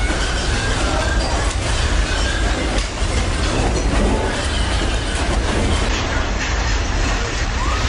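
Earthquake shaking a store: a loud, continuous deep rumble with dense rattling and clattering of shelving and merchandise.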